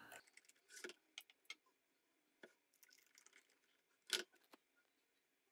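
Faint small clicks and ticks of a small screwdriver turning screws back into a Canon T90 camera body, with one sharper tap about four seconds in.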